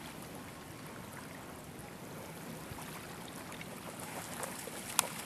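Faint, steady wash of river water lapping along the shore, with small crackles and one sharp click about five seconds in.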